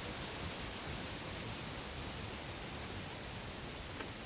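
Small fire of burning synthetic clothing, hissing steadily, with a faint crackle near the end.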